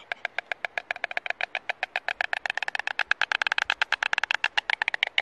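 A pair of white storks clattering their bills with heads thrown back, a fast dry rattle of about a dozen clicks a second that grows louder through the middle. It is the mated pair's bill-clattering greeting display at the nest.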